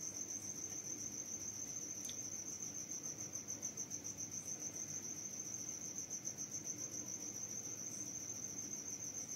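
An insect trilling steadily: one continuous high, rapidly pulsing tone.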